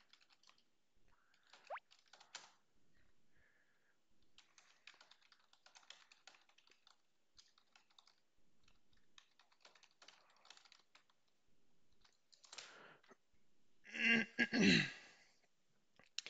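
Computer keyboard typing: scattered light key clicks at a desk. Near the end comes one brief, louder sound with a falling pitch.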